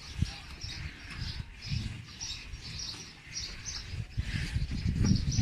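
Small birds chirping over and over in quick, high calls, over a low rumble that grows louder near the end.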